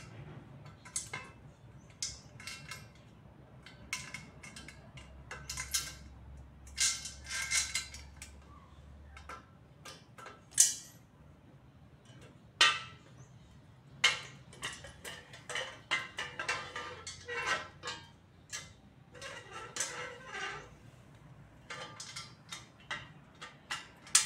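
Metal tubes of a flat-pack shoe bench frame clinking and knocking against each other and the floor tiles as they are fitted and screwed together, in irregular clicks and taps. Two louder knocks come about ten and twelve seconds in.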